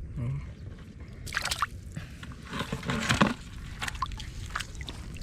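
Hands groping through wet mud and shallow water: irregular squelching and sloshing, loudest about three seconds in.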